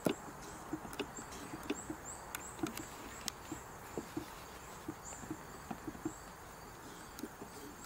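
Eldredge Automatic chain stitch sewing machine, a Willcox & Gibbs clone, hand-cranked slowly: faint mechanical clicks of the stitching mechanism, about two or three a second and unevenly spaced. A faint insect chirps steadily behind it.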